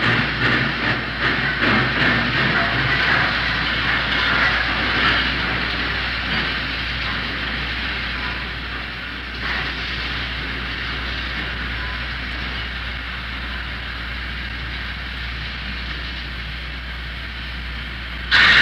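Steam locomotive in a railyard, recorded on old tape: uneven puffs and knocks in the first few seconds give way to a steady hiss of steam that slowly eases, over a low steady hum. The level jumps up abruptly just before the end.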